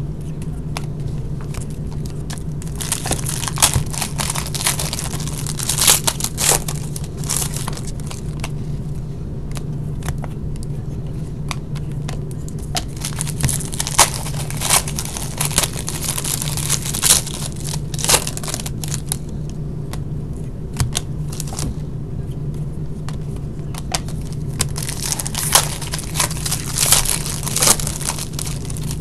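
Hockey card pack wrappers being torn open and crinkled, with cards handled in between, in irregular clusters of rustling and crackling over a steady low hum.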